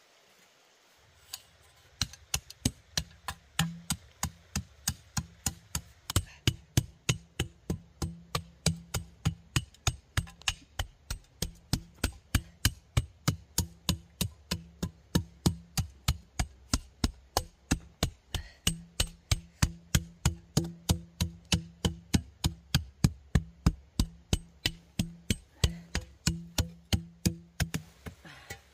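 A hand tool striking wood in a long, steady run of sharp blows, about three a second, over a low steady hum.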